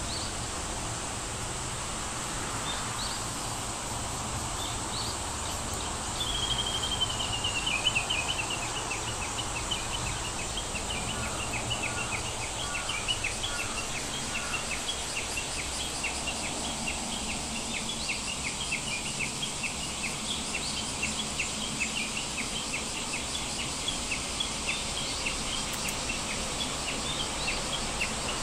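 Outdoor-type ambience: a steady hiss, and from about six seconds in a short falling trill followed by a long run of quick, high chirps, two or three a second.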